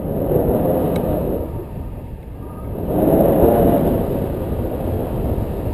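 Wind buffeting an action camera's microphone during a tandem paraglider flight: a low, even rush that swells twice, during the first second and again about three seconds in.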